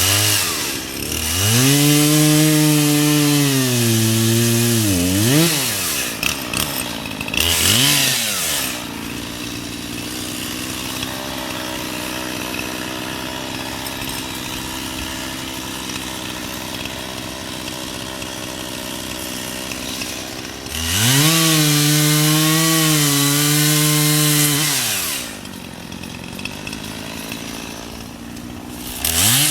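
Chainsaw revved up to full throttle twice for about four seconds each time, its pitch sagging slightly as it cuts into wood, with a short blip of throttle and a steady idle between the runs.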